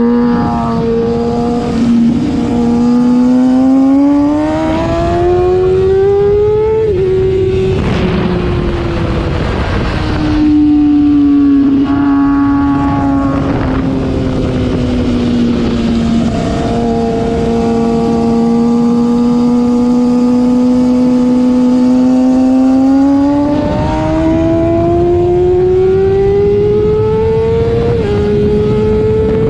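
Sport motorcycle engine recorded from on board during a track lap, its pitch climbing under acceleration, dropping sharply at an upshift about seven seconds in, holding steady through the middle, then climbing again to another upshift near the end. A steady rush of wind noise runs underneath.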